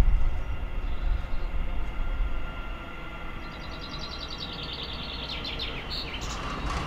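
Class 700 Siemens Desiro City electric multiple unit running in slowly, with a steady electric whine from its traction equipment over a low rumble that eases off after a couple of seconds. In the second half a bird sings a quick trill that steps down in pitch.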